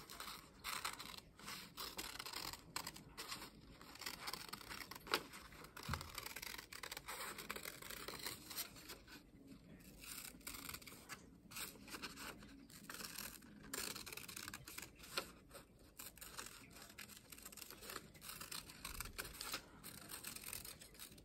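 Scissors cutting through two layers of folded paper, a faint, irregular run of snips with the rustle of the paper being turned.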